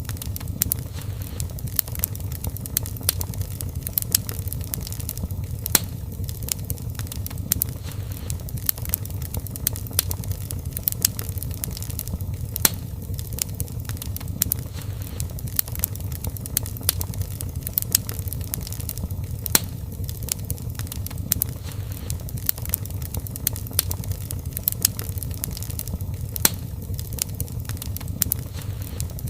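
Fire crackling in a fireplace: frequent sharp pops and snaps at irregular intervals over the steady low rumble of the flames.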